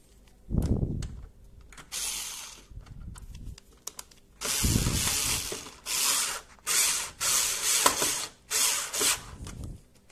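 Cordless drill-driver driving in the screws that hold the dishwasher's control panel, in about nine short bursts of a second or less, with a longer run about halfway through.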